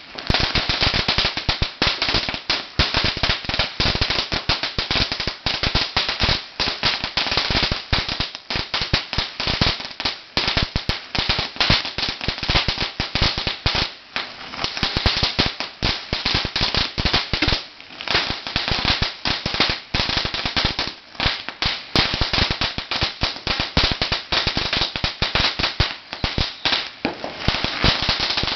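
A 50,000-count string of red paperless firecrackers going off on the ground: a rapid, continuous stream of sharp bangs.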